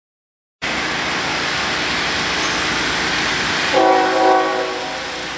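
A train horn sounds once for about a second, a chord of several steady tones, over a steady rushing noise that starts abruptly just after half a second in.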